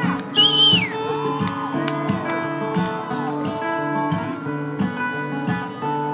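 Live acoustic guitar playing an instrumental passage between sung lines, with a steady strummed rhythm. About half a second in, a loud high whistle from someone in the crowd rises and then falls.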